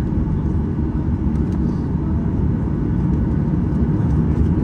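Steady cabin noise of a Boeing 737-800 taxiing, heard inside the cabin over the wing: a low, even rumble from its CFM56 turbofan engines at taxi power, together with the airframe and rolling gear.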